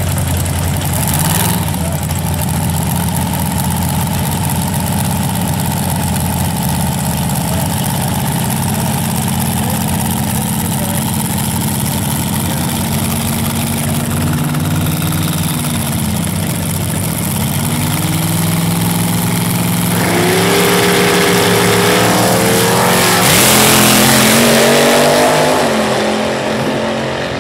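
Injected Mopar Hemi V8 of a front-engine dragster idling steadily, dipping and picking up its revs a couple of times. About 23 seconds in it goes to full throttle for the launch, its pitch climbing, and it grows fainter near the end as the car pulls away down the track.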